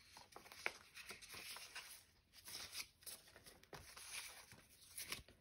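Banknotes being counted through by hand: faint rustling with a few soft flicks as the notes are peeled off one by one.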